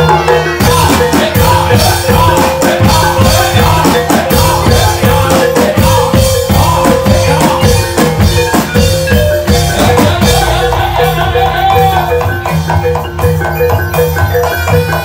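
Loud live gamelan music accompanying a barongan dance: ringing bronze metallophones and gongs over fast, dense hand-drum (kendang) beats.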